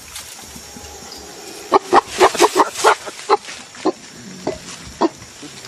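Eastern lowland gorilla giving a quick run of about eight short, gruff grunts, then three more single grunts spaced out, over a steady forest background.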